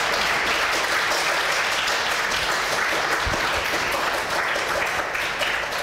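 Audience applauding in a lecture hall, a dense steady clapping that eases slightly near the end.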